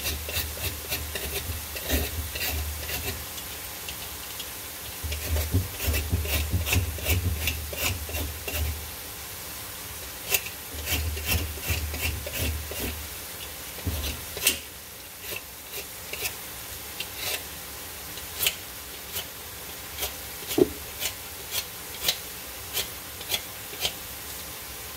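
Vegetable peeler scraping the ridged skin off a silk squash (patola) in quick repeated strokes, each a short rasping scrape, about one or two a second.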